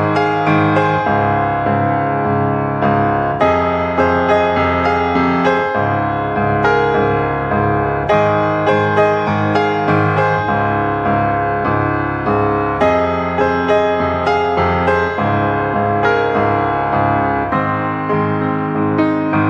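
Background piano music, notes struck in a steady flowing pattern.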